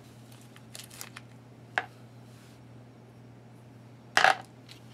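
Small ration items being set down on a plastic compartment tray: a light tap about two seconds in, then a sharp clatter near the end as something hard lands in the tray.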